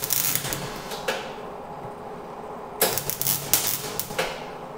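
MIG welder arc crackling and spitting as exhaust sheet metal is tack-welded, in two short bursts: one lasting about a second at the start, the other about a second and a half, starting near the three-second mark.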